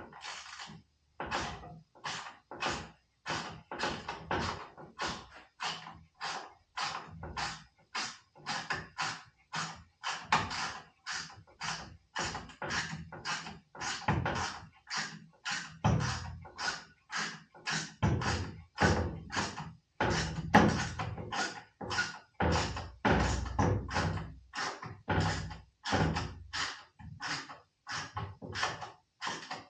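Background music with a steady beat of about two hits a second.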